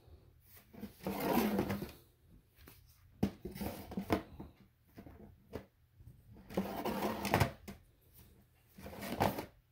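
Handling noise: clicks and rustling of CDs in plastic jewel cases being moved about, in four short bouts.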